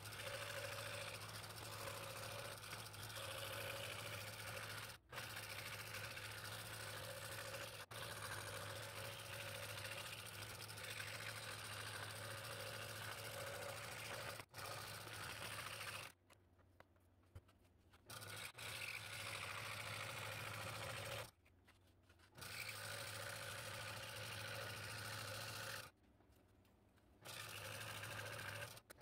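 Scroll saw running steadily, its reciprocating blade cutting a stacked three-layer blank of mahogany, black limba and ash. The sound drops out briefly three times.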